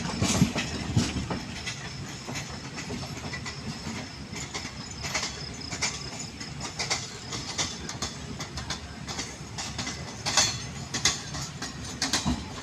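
Train running along the track, its wheels clicking and clacking over the rail joints over a steady rushing noise.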